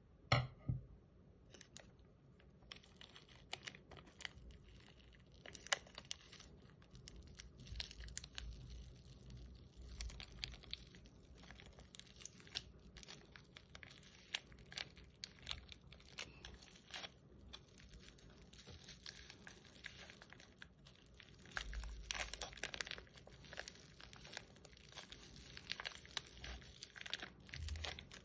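Slime being worked and squeezed by hand, with many irregular crackling clicks and crinkles and a few soft thumps.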